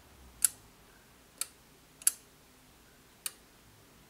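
Brass movement of a David Walter double-pendulum regulator clock ticking: four sharp metallic ticks, roughly a second apart but unevenly spaced.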